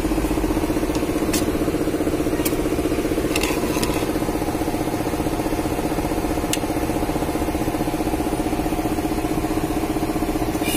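Display freezer's refrigeration compressor running with a steady hum, just switched on for a test run. A few faint clicks sound over it.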